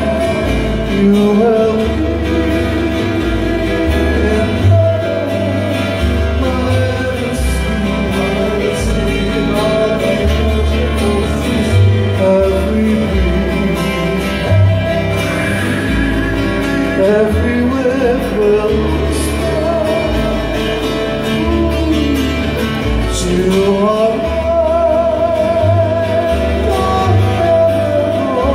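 Live Hawaiian band music: acoustic guitars strummed over a plucked upright bass, with singing.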